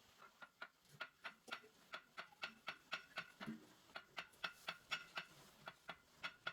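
A quick series of light, ringing taps or clicks, about four a second, with two short breaks.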